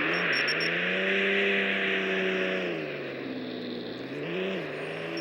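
Volkswagen Golf engine running under way. The revs hold steady, ease off about three seconds in, then give a brief blip near the end.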